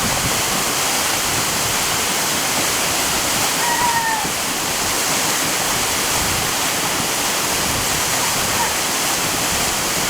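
Waterfall pouring steadily, a constant loud rush of falling water. About four seconds in, a short high tone dips slightly in pitch.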